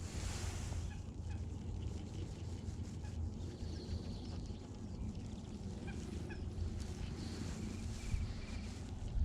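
Outdoor ambience: a steady low rumble with birds calling now and then, including a short run of quick repeated chirps past the middle.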